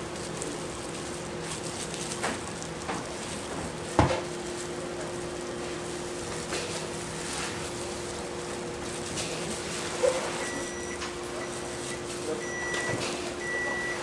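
Kitchen working sounds: a steady appliance hum with scattered clinks and a sharp knock about four seconds in. Near the end comes a series of about four short electronic beeps.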